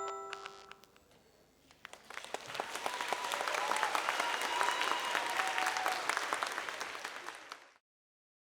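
The last bell-like notes of the music fade out, and after a short pause an audience applauds for about six seconds before the sound cuts off suddenly.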